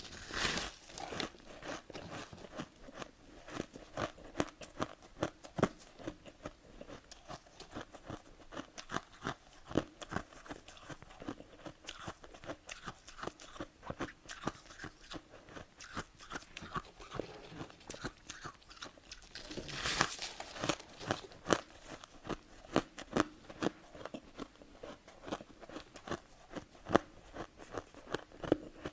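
Close-miked chewing of freezer frost: a dense, continuous run of sharp crunches, with two louder bites, one just after the start and one about twenty seconds in.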